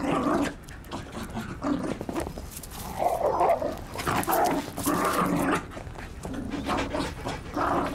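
A chocolate Labrador and a French bulldog play-fighting at close range, with growling and scuffling as the bulldog wrestles on top of the Labrador, who lies rolled onto her back in submission.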